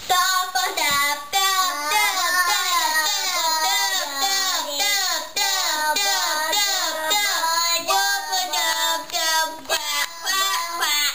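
A child singing a song, one high voice carrying a melody without a break, with a brief pause near the end.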